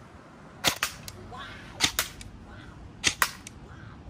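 Electric airsoft replica AR-15 firing plastic pellets one shot at a time: three shots a little over a second apart, each a sharp double crack.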